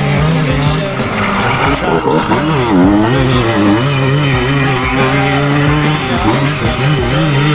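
The 50cc two-stroke engine of an HM CRE Six enduro motorcycle, revving and easing off as it is ridden around the course. Its pitch drops sharply and climbs back about three seconds in.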